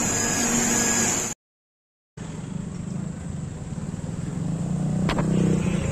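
Steady hum and hiss inside a commuter train car standing with its doors open. The sound then cuts out for under a second and gives way to street traffic: a vehicle engine running and growing louder, with a single sharp click near the end.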